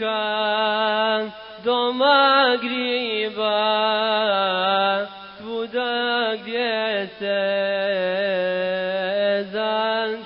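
A single voice chanting unaccompanied, holding long notes with wavering ornaments and breaking off briefly between phrases.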